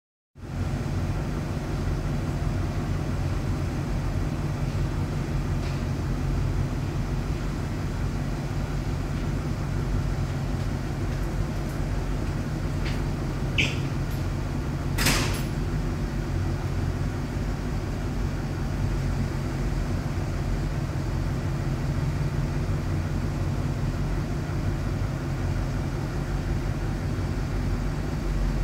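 Ship's engines and machinery giving a steady low drone heard inside a cabin, with a short click and a sharper knock about halfway through.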